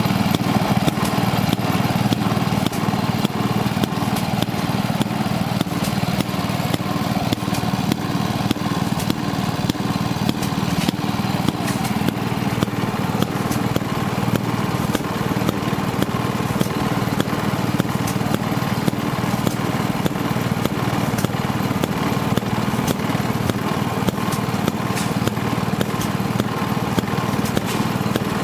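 Small gas engine of an antique engine-driven wringer washing machine running steadily with a fast, even popping.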